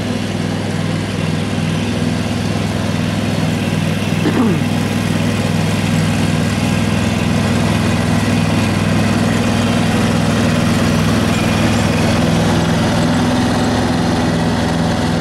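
Riding lawn tractor's engine running steadily while mowing, its hum pulsing with an even throb and growing slightly louder as the tractor comes closer.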